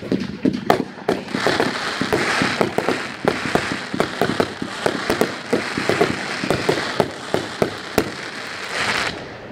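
Winda 'Need for Noise' 500 gram consumer firework cake firing a rapid string of shots, several sharp reports a second, over a continuous hiss.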